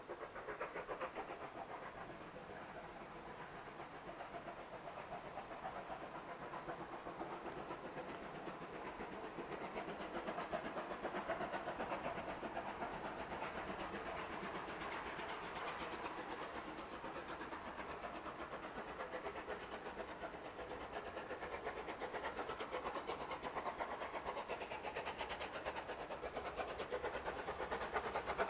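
A steam train running: a steady rushing noise of the locomotive and its train that swells and eases, growing louder near the end.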